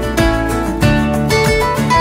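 Background music led by plucked acoustic guitar, with a steady run of notes over a bass line.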